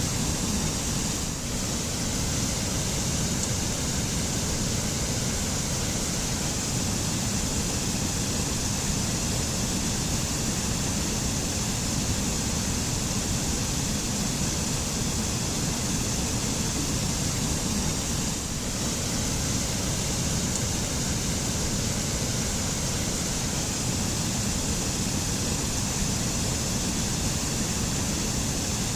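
Waterfall: a steady, unbroken rush of falling water, dipping slightly twice.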